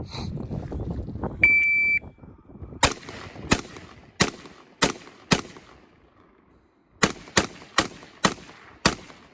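A shot timer's start beep, then ten gunshots in two quick strings of five, about half a second apart, with a short pause between the strings.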